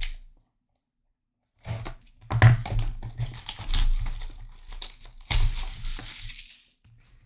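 Plastic shrink wrap being torn and crinkled off a Panini Prizm Choice trading-card box, starting about two seconds in, with a longer tearing stretch about five seconds in.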